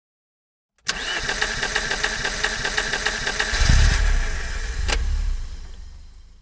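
Car engine being cranked by the starter for about four seconds, a fast rhythmic chugging with a steady whine over it, louder and deeper for a moment partway through. The starter then cuts off and the sound fades away without the engine settling into a run: cranks but won't start.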